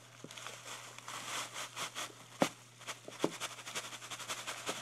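Rustling and light clicks of newspaper and a clear plastic tub being handled, with a sharper tap about two and a half seconds in.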